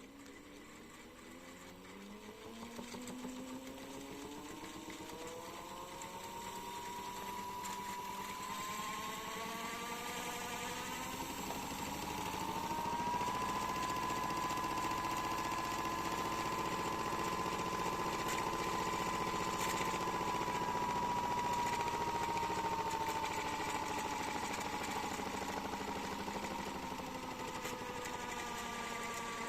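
Miele washing machine motor whining as it speeds up, the pitch climbing over roughly the first half, holding steady, then easing down a little near the end. These are noises the owner calls weird.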